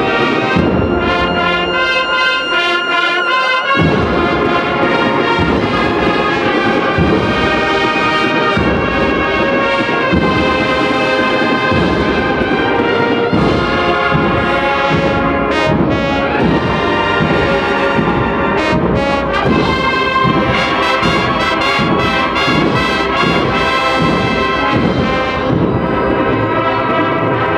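Spanish Holy Week agrupación musical playing a processional march: massed trumpets, cornets and trombones over marching drums. The low brass and drums come in strongly about four seconds in.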